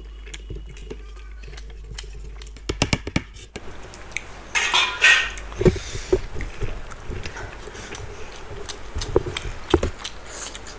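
Stainless steel plates clinking and scraping as rice is tipped onto plates and curry plates are handled: a quick run of sharp knocks about three seconds in, a longer scrape a second or two later, and scattered light clicks after.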